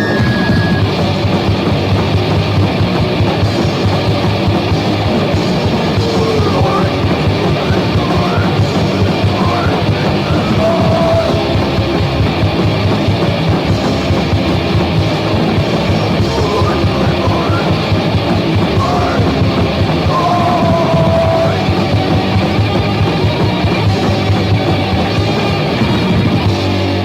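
Crust punk song from a 1999 demo recording, played by a full band at steady loudness: distorted guitars, bass and drum kit.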